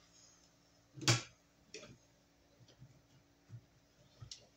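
Sharp clicks and taps of hand work on a metal breaker disconnect box, tool and wire against the terminals and box: one loud click about a second in, a second one shortly after, then a few fainter ticks.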